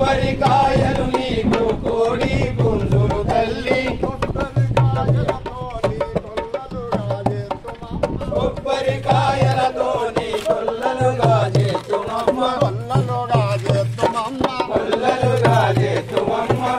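Hand-played two-headed barrel drum (dholak) beating a fast, steady rhythm, with men singing a devotional song to the mother goddess in chorus over it.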